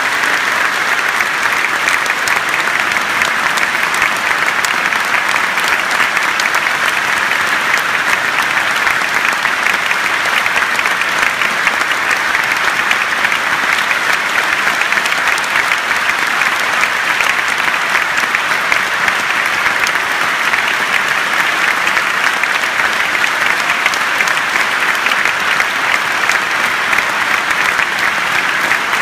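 Large concert audience applauding, a dense, steady clapping that holds at one level throughout.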